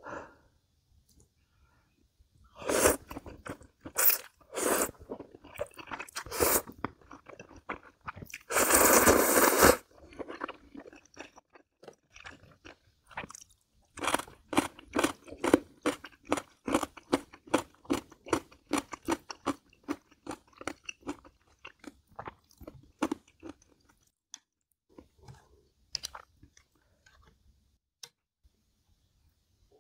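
Close-miked mukbang eating of jjamppong: a few loud bites, a long slurp of noodles lasting about a second and a half, then a long run of crunchy chewing at several chews a second that thins out to occasional clicks near the end.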